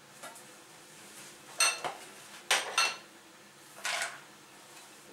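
Kitchen dishes clinking as a bowl is fetched and set down: a handful of sharp clinks between about one and a half and three seconds in, then a softer knock near four seconds.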